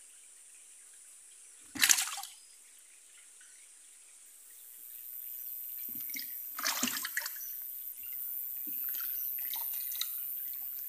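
Water poured out of a plastic tub into a reservoir, releasing small fish. A single sharp splash comes about two seconds in, then from about halfway a steady pour runs on with small splashes.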